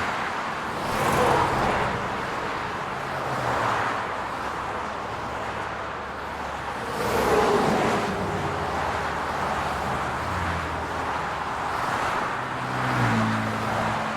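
Road traffic: a steady hum of cars, with several vehicles passing one after another, each swelling and fading with its engine and tyre noise.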